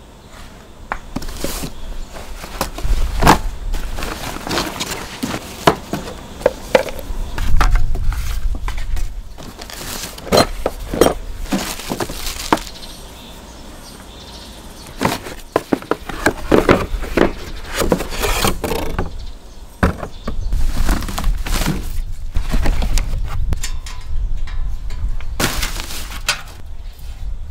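Cardboard packaging being handled and pulled out of a box: sheets and inserts sliding and scraping against each other, with irregular knocks and thumps, and a quieter pause about halfway through.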